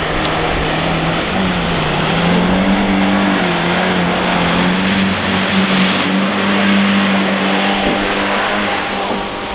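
A 4x4 SUV's engine running hard at high revs as it ploughs through deep mud and water. The engine note climbs about a second and a half in and stays high, over the noise of splashing water and mud.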